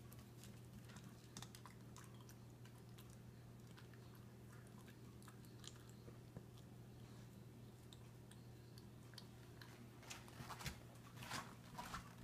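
A small dachshund eating from a plastic slow-feeder bowl: faint chewing with scattered small clicks, a few louder clicks near the end.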